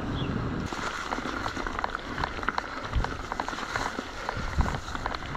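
Full-suspension mountain bike (Orbea Occam) rolling over a rough trail: steady tyre noise with many irregular small clicks and rattles from the bike, and a few low thumps.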